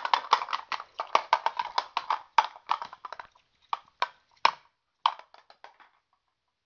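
Rapid clacks and knocks of a wooden toy wand striking hard plastic toy blocks and figures, several a second, thinning out and stopping near the end.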